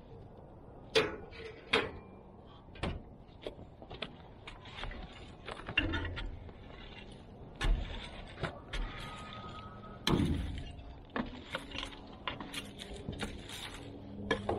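Irregular sharp metal clanks and knocks at the firebox of an outdoor wood-burning furnace as a metal poker works the coals inside, the loudest about a second in and again about ten seconds in.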